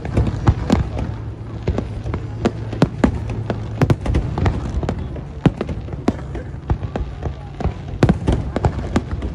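Aerial firework shells bursting, many sharp bangs in quick irregular succession over a low continuous rumble.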